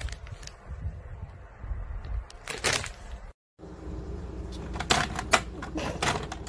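A plastic chip bag crinkling with scattered rustles, then a run of light clicks and clatters as a cat's paw knocks at makeup items in a plastic organizer.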